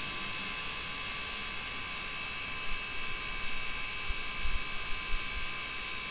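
Steady electrical hum and whine, several high tones held level throughout, with a few short low bumps in the middle.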